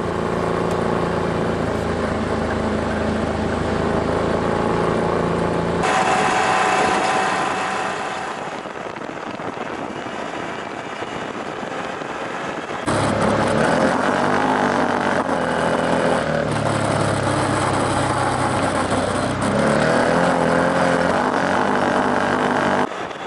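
Side-by-side UTV engines running. Later a UTV's engine pulls along a dirt trail, its pitch rising and falling with the throttle. The sound changes abruptly about six and thirteen seconds in, where separate stretches are cut together.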